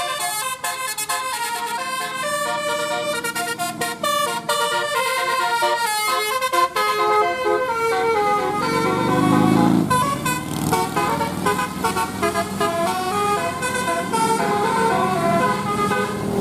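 Bus telolet horn playing a fast multi-note tune, its notes stepping up and down several times a second. The bus's engine rumble swells briefly about eight to ten seconds in as it passes.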